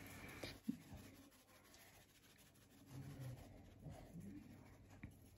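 Near silence, with faint soft rustling and a few light ticks from a tin of ground black pepper being shaken over raw chicken in a glass bowl.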